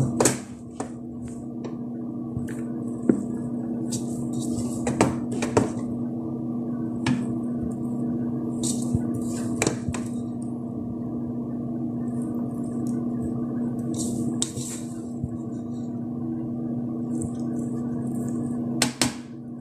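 A spoon scraping and knocking against a stainless steel pot as cooked rice is stirred and fluffed, with a handful of sharp clicks spread through, over a steady low hum.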